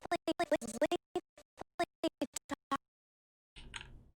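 A dialogue clip being scrubbed along an animation timeline: a voice line chopped into rapid stuttering fragments, breaking off about three seconds in, with one short smeared fragment near the end.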